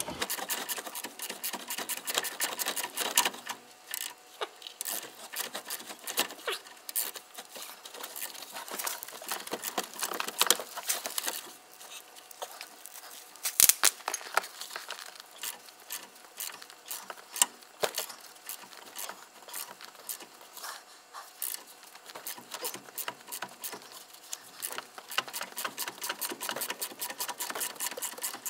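Socket ratchet clicking in quick runs with short pauses as a loosened brake caliper carrier bolt is wound out, with one sharper metal knock about halfway through.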